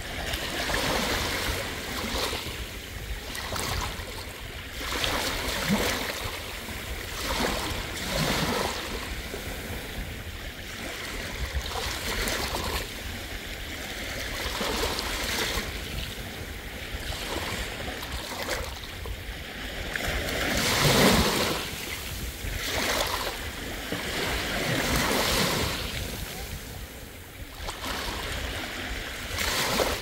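Sea waves washing onto a beach in repeated surges every two to three seconds, the loudest about two-thirds of the way through, over a steady low rumble.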